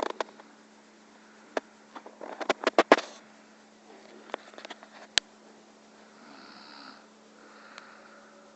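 A sleeping person snoring, with a slow breathy snore about six seconds in. Before it, a quick run of sharp clicks and taps about two to three seconds in is the loudest thing, over a steady low hum.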